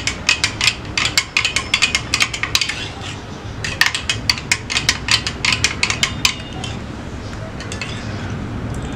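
Steel spoon clinking against the inside of a glass tumbler while stirring lemon juice, several quick clinks a second with a short pause about three seconds in, stopping about six seconds in.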